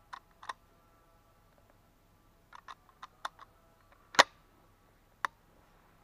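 Sharp metallic clicks and knocks from a scoped hunting carbine being handled: a few at first, a quick cluster a couple of seconds in, then the loudest single clack about four seconds in and one more near the end.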